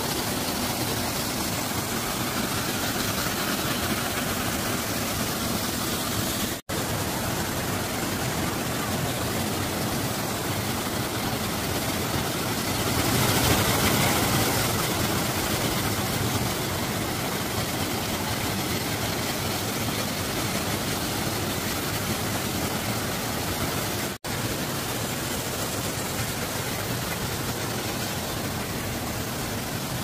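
Waterfall and stream rushing over rocks, a steady rush of water that cuts out for an instant twice and swells slightly about halfway through.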